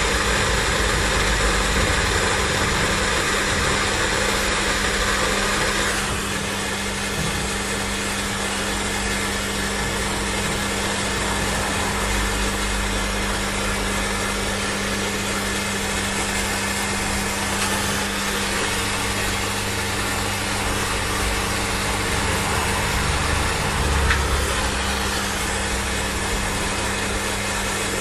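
Heat gun running steadily, its fan blowing with a constant hum and hiss, shrinking heat-shrink tubing over soldered wire joints. The hiss drops a little about six seconds in.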